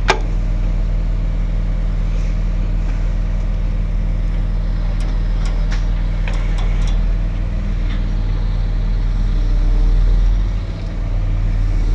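An engine idling steadily with a low drone. One sharp click right at the start and a few light clicks between about five and seven seconds in.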